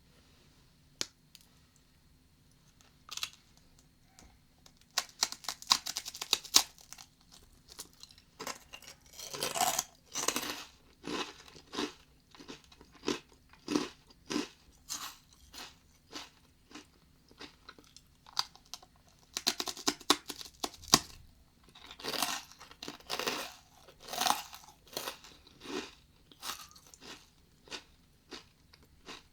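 A person biting and chewing crunchy Japanese rice crackers (senbei) close to a binaural microphone: crisp crunches in several dense bursts, with scattered single crunches in between.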